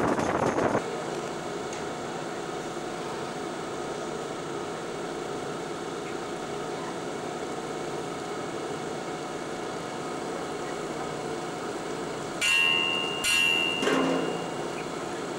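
A metre-gauge train's running noise, loud with wind for the first second, then after a cut a quieter steady background hum at a station. Near the end come three loud sudden metallic strikes, each leaving a high ringing tone.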